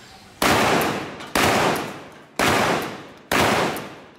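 Shotgun fired four times in quick succession, about one shot a second. Each shot rings out and fades away before the next.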